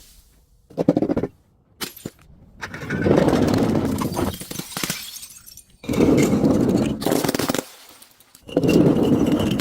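Glass and crunchy objects being crushed: a few short cracks in the first two seconds, then three long stretches of dense crunching and crackling.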